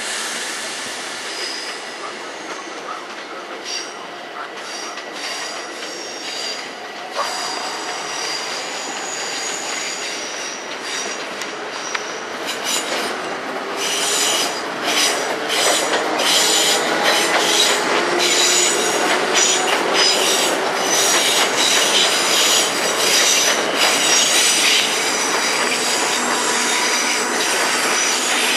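Passenger train wheels squealing on the rails, with rapid clicks from wheels running over rail joints. The squeal and clatter grow louder and more continuous from about halfway through.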